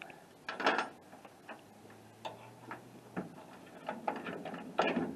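Irregular metallic clicks and clanks of hand work fitting a new tailgate support cable onto a pickup truck: a louder clatter about half a second in, scattered ticks, and another clank near the end.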